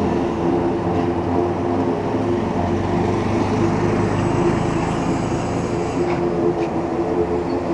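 Wood-processing machine running steadily under load: a continuous mechanical rumble with a constant hum of several steady tones, plus a couple of faint clicks about six seconds in.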